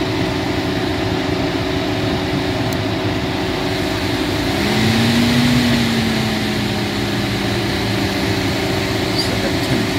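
Chevrolet Orlando's electric radiator cooling fan running steadily, then rising in pitch and getting louder about halfway through as it goes to high speed when the fan switch sensor is plugged back in. The fan runs on high whenever the sensor is connected, a fault the owner thinks may come from water in the sensor after an engine wash.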